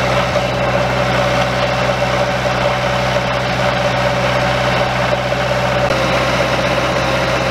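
Bobcat 825 skid steer's engine idling steadily, freshly started on ether after a boost.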